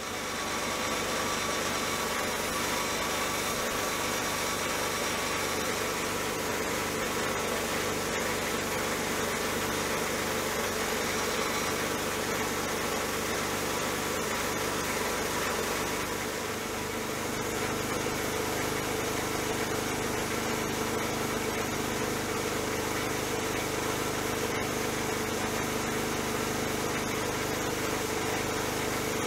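Abrasive blast cabinet gun hissing steadily as it sprays blast media onto the steel side plates of a metal shear, stripping blue paint and rust down to bare metal.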